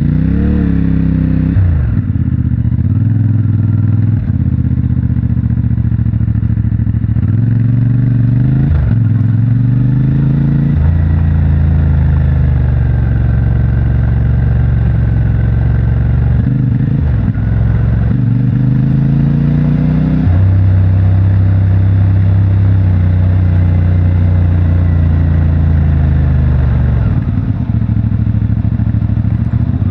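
CFMOTO 450MT's parallel-twin engine on its stock exhaust, pulling through the gears: the engine note rises and drops several times in the first third, then holds steadier with a couple of dips and pick-ups.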